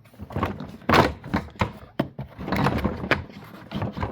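Several hollow knocks and thunks with some clatter in between, from the plastic body and hose of a Ridgid 12-gallon wet/dry vacuum being handled.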